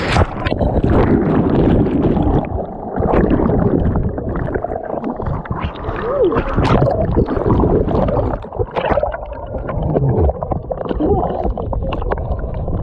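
Water rushing, gurgling and splashing close to the microphone at a natural rock water slide. A few brief gliding squeals rise and fall through it.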